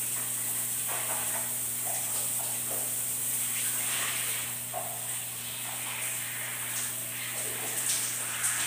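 Overhead shower spraying steadily onto a person and the tiled floor, with a steady low hum underneath and a few small splashes near the end.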